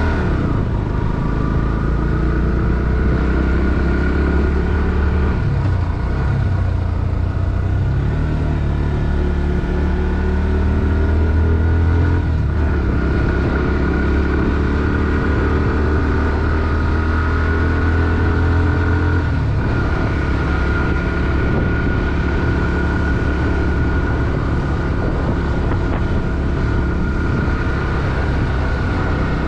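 Bajaj Pulsar NS160's single-cylinder four-stroke engine running under way on a ride. Its note drops and climbs again about six seconds in, and changes again near twenty seconds, as with throttle and gear changes.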